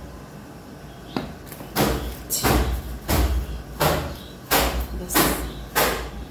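Thin plastic bag of turmeric powder crinkling and rustling as it is handled and powder is scooped out of it, in a run of sharp rustles about one or two a second, starting about a second in.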